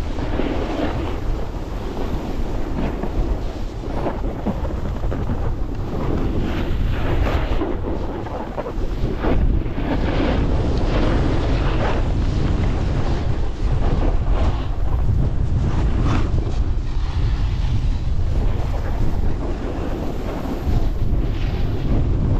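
Wind buffeting the microphone during a fast downhill run, a steady low rumble, with swelling hiss and scrape of board edges carving across packed snow.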